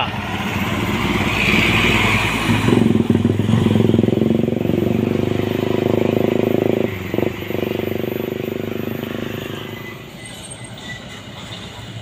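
A bus's diesel engine running as the bus passes close by. The engine note swells from about three seconds in and fades away near ten seconds, with a brief hiss about a second in.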